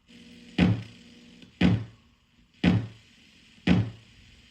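Homemade analog kick drum circuit, a TL074 op amp with a bridged-T network in its feedback loop, played through a speaker. It gives four hits about one a second, each a sharp click followed by a low decaying tone.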